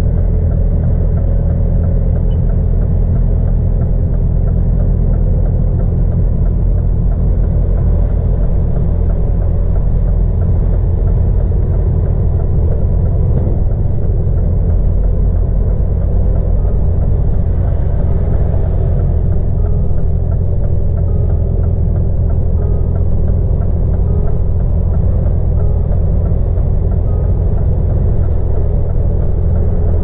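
Scania R450's 13-litre straight-six diesel engine running steadily at low speed, a constant low rumble heard from inside the cab.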